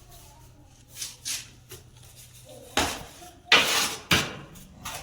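Metal masonry tools knocking and scraping while wet concrete mix is worked: several sharp clanks, with a louder half-second scrape about three and a half seconds in.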